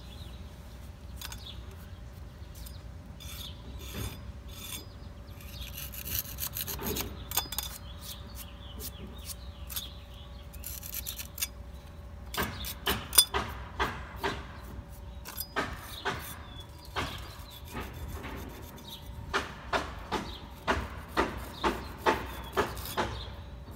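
A hand tool scraping and rubbing against the cast stone of a balustrade base while a large patch repair is worked. The strokes are short and sharp: a few scattered ones early, then a steady run of about two a second in the second half.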